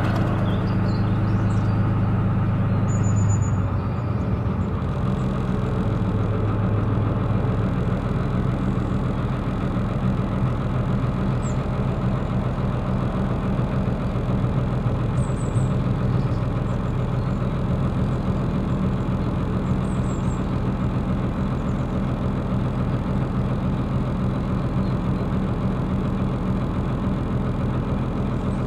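Narrowboat engine running steadily under way; about four seconds in the note drops and it settles slightly quieter, as if the throttle is eased. A few faint high chirps sound now and then above the engine.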